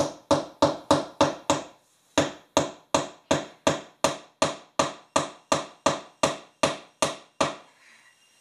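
A hammer striking a wooden board in quick, even blows, about three a second. There is a short break about two seconds in, and the blows stop near the end.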